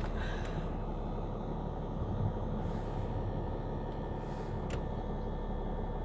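A car driving slowly, heard from inside the cabin: a steady low engine and tyre rumble, with one faint click about three-quarters of the way through.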